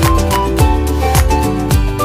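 Background music with a steady beat of just under two beats a second and a melody of high held notes.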